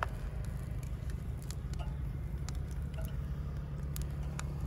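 Food crackling on a wire grill, with scattered sharp pops and clicks over a steady low hum.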